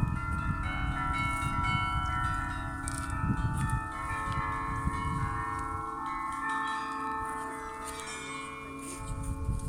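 Russian Orthodox church bells ringing: several bells of different pitches struck in quick succession, their tones ringing on and overlapping. A low rumble lies underneath and drops away for a few seconds in the second half.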